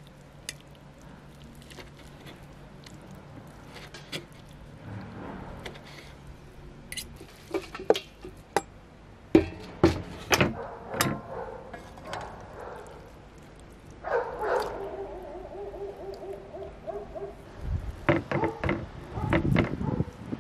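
A kitchen knife and fork cutting boiled beef short ribs on a wooden board: soft cutting, then sharp knocks of the blade on the wood in clusters, and the meat scraped off the board into a pot. About two thirds through, a long pitched call starts with a falling slide and is held for about three seconds.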